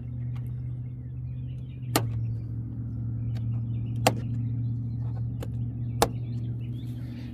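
Three sharp plastic snaps about two seconds apart as push-in trim clips are pressed home into the GR86's front wheel-well liner, with a steady low hum underneath.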